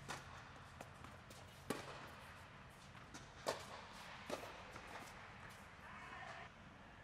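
Tennis ball being hit with racquets and bouncing on an indoor hard court during a rally: a handful of sharp pops, the loudest a little under two seconds in and about three and a half seconds in.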